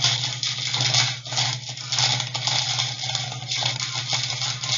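Plastic packaging crinkling and crackling as it is handled and opened, with a steady low hum underneath.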